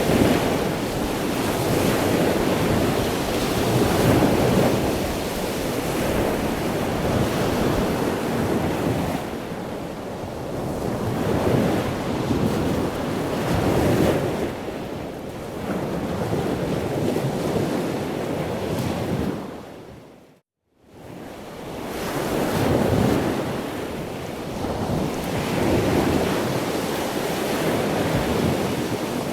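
Ocean surf washing in continuous waves that swell and ebb every few seconds. About two-thirds of the way through it fades out to silence for about a second, then fades back in.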